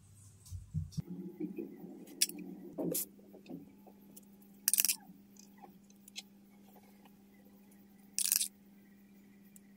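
Thin paintbrush brushing liquid over fondant decorations: short scratchy swishes a few seconds apart, over a faint steady low hum.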